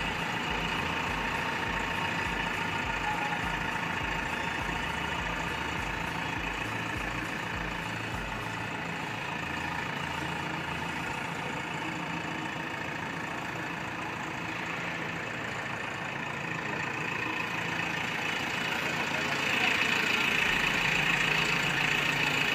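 JCB Eco Xcellence backhoe loader's diesel engine running, with a low, pulsing throb for the first eight seconds or so, then steadier, and louder near the end.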